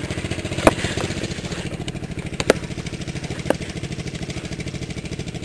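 Small single-cylinder garden tractor engines running steadily with a rapid pulsing exhaust beat, with three short sharp clicks about a second, two and a half and three and a half seconds in.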